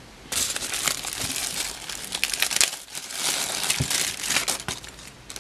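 Thin zip-lock plastic bag crinkling and rustling as it is handled and opened to get a small diecast toy car out. A dense crackle starts about a third of a second in and eases briefly near the middle.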